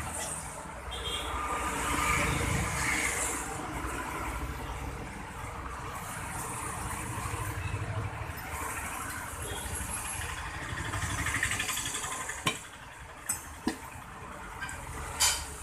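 A motor vehicle engine running steadily, swelling and easing a few times, with several sharp metal clinks in the last few seconds as steel tyre levers knock against the steel wheel rim.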